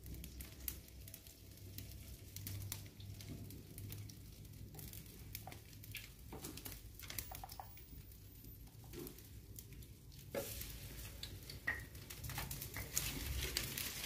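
Faint scattered clicks and scrapes of metal tongs stirring batter in a ceramic bowl, over the low crackle of a small wood fire. About ten seconds in, the crackling and rustling grow louder as dry sticks are fed into the stove.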